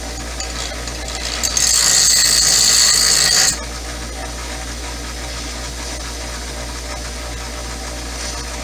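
Power grinder running steadily, with a loud, high hissing grind for about two seconds, starting about a second and a half in and cutting off sharply as the work is pulled away.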